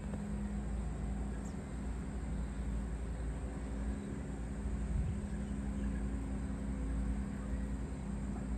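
Steady outdoor background rumble with a faint continuous hum and no distinct events.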